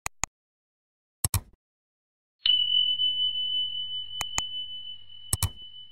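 Subscribe-reminder sound effects: four pairs of sharp mouse-style clicks, and a single high bell ding about two and a half seconds in that rings on and fades slowly under the later clicks.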